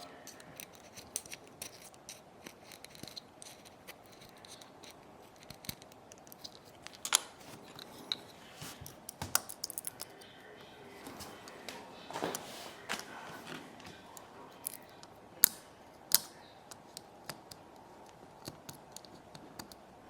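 Small hand tools clicking and scraping on the parts of an iPod nano being taken apart by hand: scattered sharp clicks and short scrapes, the loudest clicks about a third of the way in and again about three-quarters of the way in.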